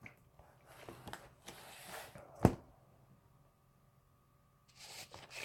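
Soft rustling handling noise, with one sharp knock about two and a half seconds in, then a quiet room.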